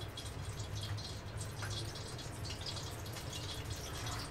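Steady low hum and hiss of room noise, with faint light ticks scattered through it.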